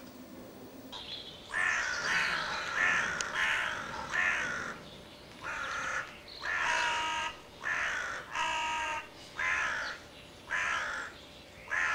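A series of raspy crow caws. There is a quick run of about five about a second and a half in, then single caws roughly once a second.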